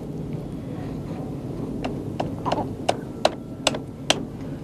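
Keys being pressed on a push-button landline telephone as a number is dialled: about seven short, sharp clicks, a little under three a second, starting about two seconds in.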